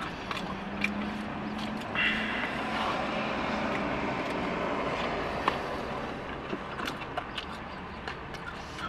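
A motor vehicle passing outside the parked car, heard from inside the cabin: a swell of engine and road noise that rises about two seconds in and fades away after about six seconds. A few faint clicks of a fork and chewing sound over it.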